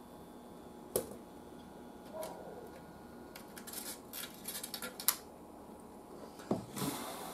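Scattered small clicks and taps from test leads, clips and tools being handled at an electronics workbench. A run of light rattling clicks ends in a sharp click about five seconds in, and a knock and a short scrape follow near the end.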